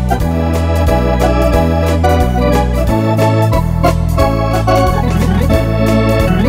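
Wersi electronic organ playing a step-fox tune: sustained chords on the manuals over a bass line that changes notes about every half second, with a steady drum-machine beat.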